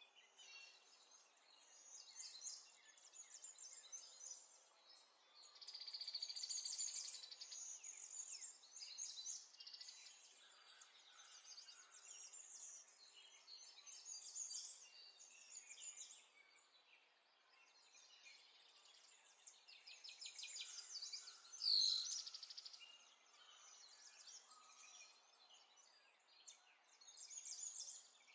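Faint small birds chirping and trilling in the background, with one louder call falling in pitch a little past the middle.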